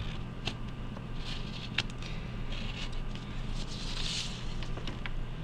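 Soft paper handling: a white colour pencil scratching on paper around a paper snake tracer, with light taps and rustles. A louder paper rustle comes about four seconds in as the tracer is lifted off the sheet.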